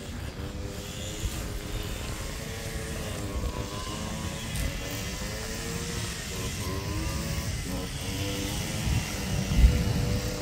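Street traffic: a motor vehicle's engine running past, its pitch wavering up and down over several seconds above a constant low rumble. There is a single low thump near the end.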